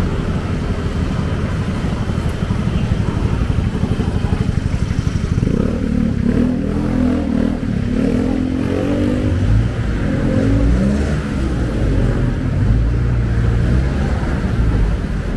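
Street traffic: motorcycle and car engines running close by, with an engine's pitch rising and falling about midway through.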